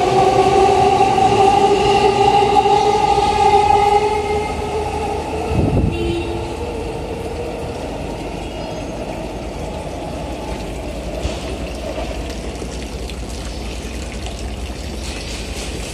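JR East E233-1000 series electric train pulling out of the station, its motors whining in several steady tones that slowly drop in pitch. The sound fades about four seconds in, with a brief low rumble near six seconds, then gives way to a quieter steady background noise.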